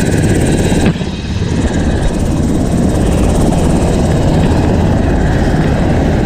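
UH-60 Black Hawk helicopter running close by: a loud, steady rotor and engine noise with a high turbine whine. The whine drops away about a second in, while the low rotor noise carries on.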